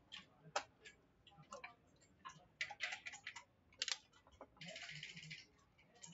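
Backgammon checkers clacking against each other and the board as they are moved, with a sharp click near the middle. About four and a half seconds in comes a short rattle of dice shaken in a cup and thrown onto the board.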